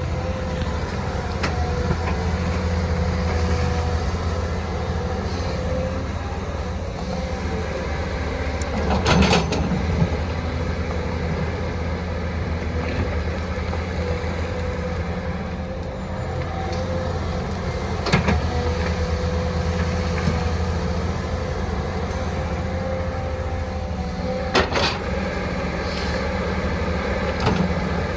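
Excavator's diesel engine running steadily with a held hydraulic whine, broken by four sharp metallic clanks: about a third of the way in, midway, and twice near the end.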